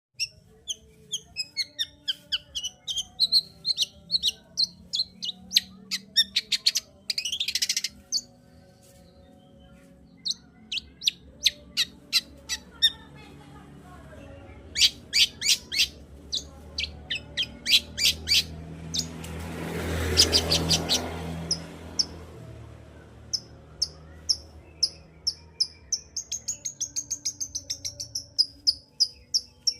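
Long-tailed shrike (cendet) singing energetically in rapid runs of sharp chirps and whistled notes. A harsh rasping call comes about seven seconds in, and a louder raspy stretch around twenty seconds in.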